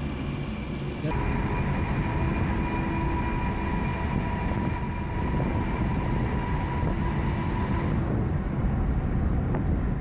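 Traffic and tyre noise echoing inside a motorway tunnel while driving through it: a steady low rumble, with a thin high whine that joins about a second in and fades near the end as the vehicle reaches the tunnel exit.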